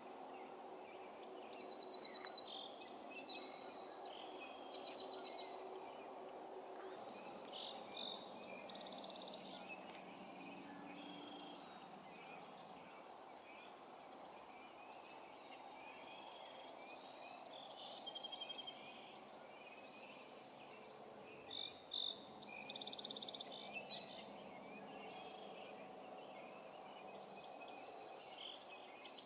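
Several songbirds singing, with short chirps and fast rattling trills, the loudest near the start and again a little past the middle, over a steady faint distant hum.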